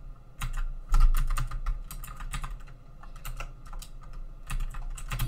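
Computer keyboard keys pressed in quick, irregular succession, navigating a text-mode installer menu; the clicks are loudest about a second in.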